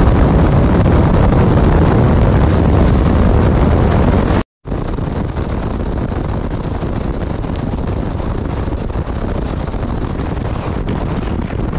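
Wind rushing and buffeting over the microphone on a moving motorcycle, with road noise. The sound drops out about four and a half seconds in at a cut, then carries on slightly lighter and thinner.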